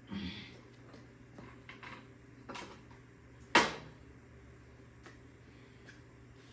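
Scattered clicks and knocks from bicycle parts and tools being handled, with the loudest knock about three and a half seconds in, over a low steady hum.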